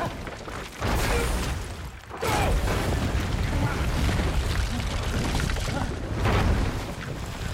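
Film sound effects of a violent tumble and crash: deep rumbling booms and rushing noise that surge about a second in, again just after two seconds and again near the end.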